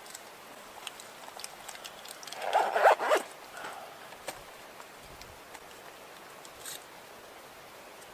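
A zip on a small fabric first-aid pouch pulled in one rasping stroke about two and a half seconds in, amid light clicks and rustling as the kit is handled.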